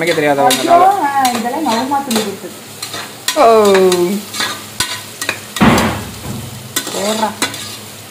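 Sliced onions and green chillies frying in oil in an aluminium pressure cooker, sizzling while a metal ladle stirs them and clicks and scrapes against the pot. A voice sounds briefly at times, including one falling vocal sound a few seconds in.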